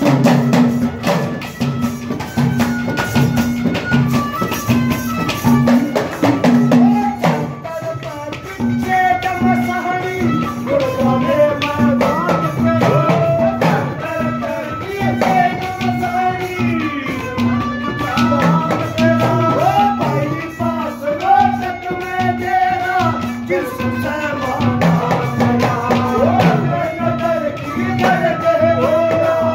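Devotional folk music: a deru drum and clay-pot (ghada) percussion beat a fast, steady rhythm. About seven or eight seconds in, a wavering melody line joins them.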